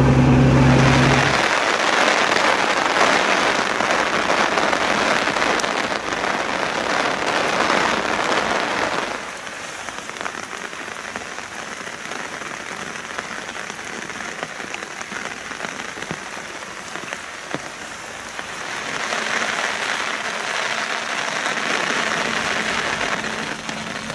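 Heavy rain pouring down, a steady hiss of drops on leaves and wet pavement, quieter for a stretch in the middle. A car's engine hum is heard briefly at the start and cuts off about a second in.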